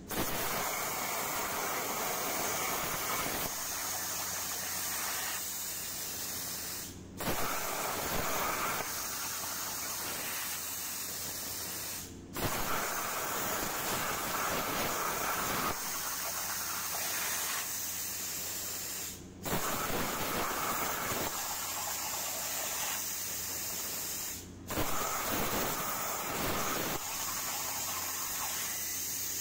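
Hypertherm Powermax85 plasma torch with FineCut consumables cutting 10-gauge steel at 45 amps: a steady hiss of air and arc. It cuts out briefly four times and starts again each time, as the torch shuts off and fires on the next cut.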